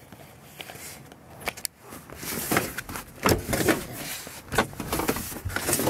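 Handling noise from moving about inside a car: scattered clicks, knocks and rustling against the seats and trim, busier and louder in the second half.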